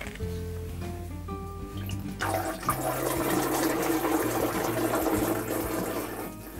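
Liquid poured and splashing into an aquarium's water, starting about two seconds in and stopping just before the end, over background music.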